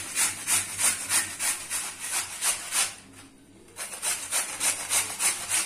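Raw peeled potato being grated by hand on a stainless-steel grater: quick rasping strokes, about three or four a second. The strokes pause for about a second around three seconds in, then resume.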